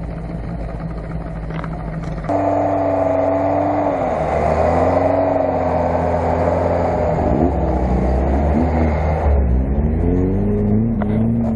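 Lada Niva 4x4's engine running and revving, its pitch rising and falling; it gets louder about two seconds in.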